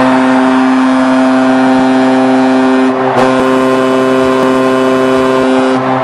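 Colorado Rapids stadium goal horn blasting a chord of several steady tones in long blasts, breaking briefly about three seconds in and again near the end.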